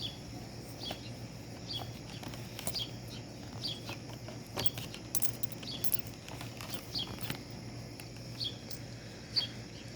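A bird giving a short high chirp over and over, about once a second, against a steady low hum, with a few faint clicks in between.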